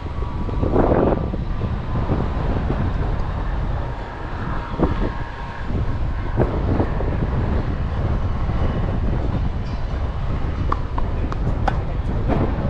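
Strong wind buffeting the microphone: a steady low rumble, with a few short sharp knocks through it.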